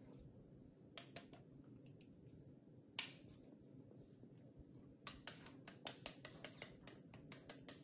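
Faint clicks of a plastic protein-residue test swab being handled and pushed into its tube: a couple of small clicks, one sharp click about three seconds in, then from about five seconds a quick run of light clicks, several a second.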